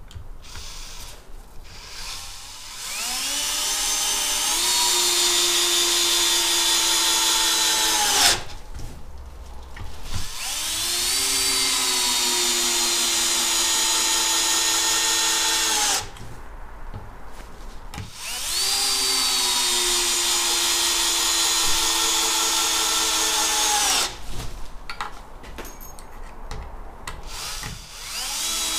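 Bosch GSR 10,8-2-LI cordless drill driver in first gear driving 5×70 mm wood screws into a timber beam. There are three long runs of motor and gearbox whine, each about six seconds, with short pauses between screws. Each run rises in pitch as the drill spins up, then sinks slowly as the screw goes deeper and the load grows. Another run starts at the very end.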